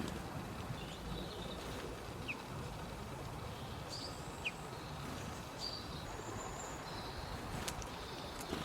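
Birds chirping: short high calls and brief whistled notes scattered through, over a steady low rumble of outdoor background noise.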